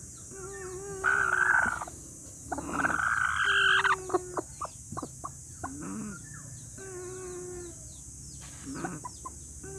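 A chicken making snore-like breathing sounds in a repeating cycle: a held, even tone, then a louder rough call, about every three to four seconds.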